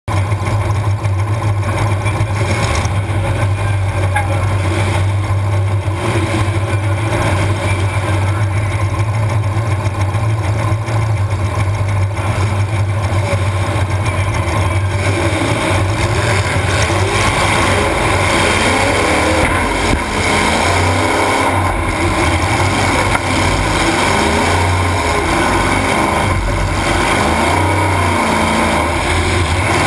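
Demolition derby car engine running loud, heard from inside the car, with a steady drone that turns to repeated revving, rising and falling in pitch, from about halfway through.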